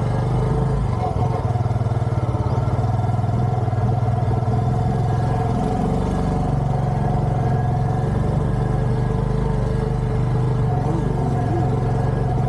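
A motor vehicle engine running steadily, a constant low drone.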